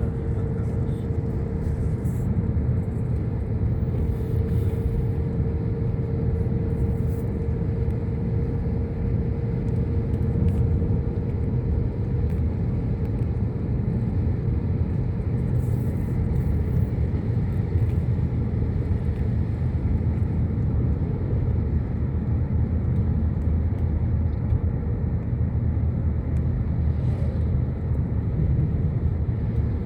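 A motor vehicle moving at a steady speed: a constant low engine and road rumble, with a faint steady hum that fades about halfway through.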